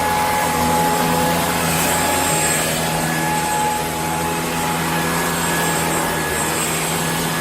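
Shark PowerDetect corded stick vacuum running steadily at strong suction as it is pushed across carpet: a constant motor whine over the rush of air.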